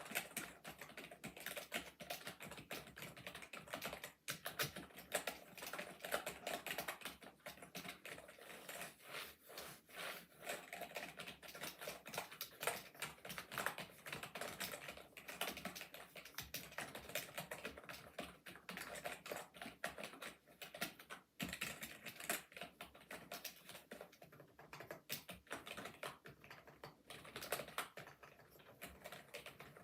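Century Pro Game computer keyboard being typed on steadily: a rapid, continuous clicking of keystrokes, several a second, with a couple of brief pauses.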